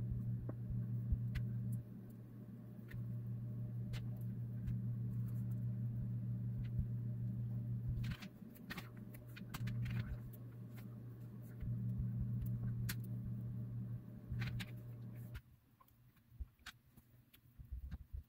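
A steady low machine hum that steps louder and softer and cuts off suddenly about fifteen seconds in. Through it come scattered light clicks and taps as soft processed-cheese cubes are pulled apart and dropped on a plastic cutting board.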